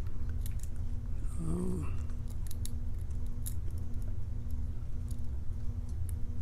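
Lock pick and tension wrench working the pins of an EVVA euro cylinder lock: faint, irregular small clicks and scrapes as the pins are set and keep slipping into a false set. A short hum from the picker comes about one and a half seconds in, over a steady low hum.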